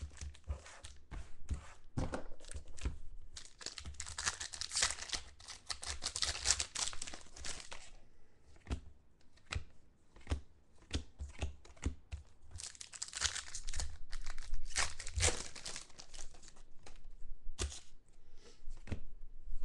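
Trading card pack wrappers from a box of 2013 Contenders football being torn open and crinkled, in two longer stretches, with short clicks and rustles of cards being handled in between.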